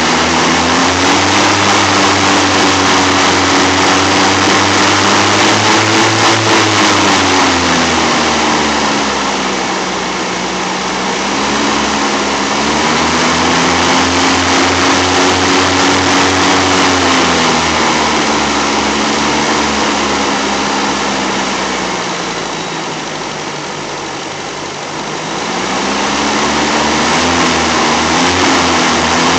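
Land Rover 109's carburettor engine running, its speed sinking and rising slowly several times. It is lowest and quietest about two thirds of the way through, then picks up again.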